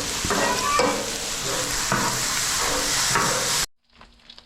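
Fried rice sizzling on a Blackstone flat-top griddle while a metal spatula scrapes and stirs it in repeated strokes. The sound cuts off abruptly near the end, leaving only a faint sizzle.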